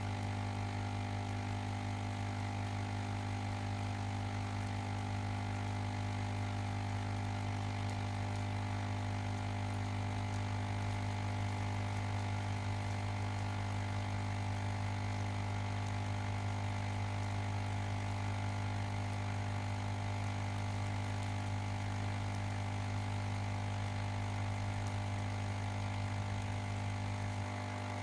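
Ozone generator running with a steady low electrical hum and fan noise, level and unchanging, easing off slightly just before the end.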